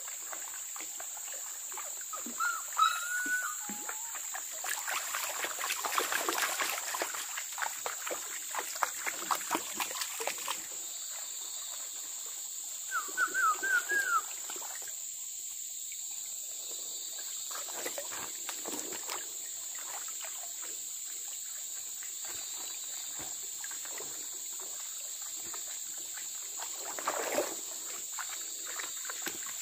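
Forest stream ambience: a steady high-pitched insect drone over trickling water, with splashing as someone wades through the shallows about 5 to 11 seconds in. Two short runs of quick, rising whistled calls come near 3 seconds and again near 13 seconds, the second the loudest sound.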